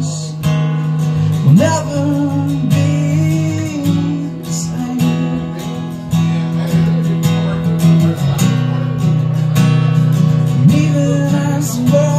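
Acoustic guitar strummed steadily, with a man's voice singing along in places.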